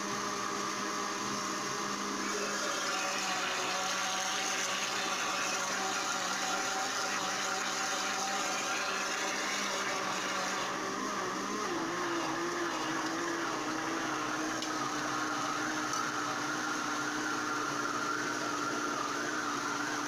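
Countertop blender running steadily, its motor beating a liquid batter of milk, oil, eggs and wheat flour. About eleven and a half seconds in, the motor's pitch rises a step, wavers briefly, then holds steady.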